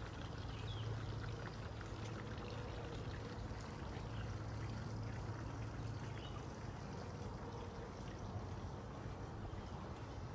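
Steady running water, a continuous splashing trickle, over a low steady hum, with a few faint bird chirps.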